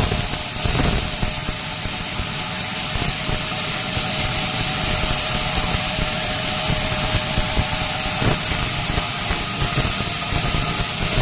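Sawmill machinery running steadily: a constant hiss with faint steady hums under it, and a brief knock near the start and another about eight seconds in.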